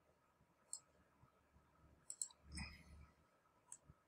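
Faint computer mouse clicks: a few scattered single clicks and quick pairs, with a soft low thump about two thirds of the way through.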